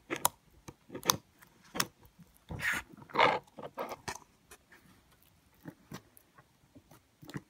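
Handling noise from a plastic slime container: a series of sharp clicks and knocks, with a louder, longer rustle about three seconds in.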